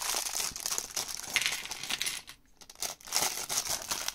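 Small clear plastic bag of LEGO pieces being crinkled and worked open by hand, with many small crackles. There is a brief pause a little past the middle before the crinkling starts again.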